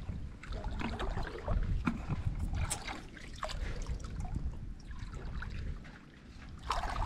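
Shallow muddy water sloshing and splashing as a person wades through it and gropes under the surface by hand, with scattered small splashes.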